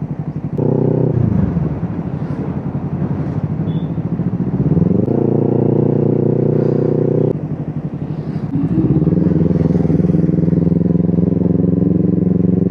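Motorcycle engine running under way, the throttle opened three times: the pitch rises and holds steady, eases off about seven seconds in, then rises again and holds.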